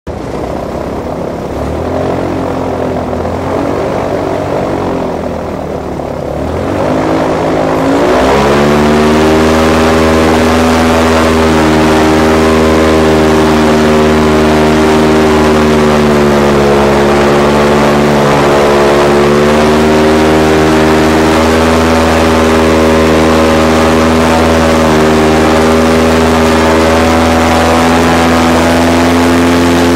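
Airboat engine and propeller running low and uneven, then revving up about seven seconds in to a loud, steady drone with small rises and dips in pitch as it drives the hull over dry marsh ground.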